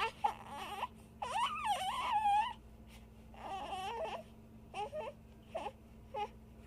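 A series of high-pitched, wavering crying calls: two long wails, then several shorter cries that grow briefer toward the end.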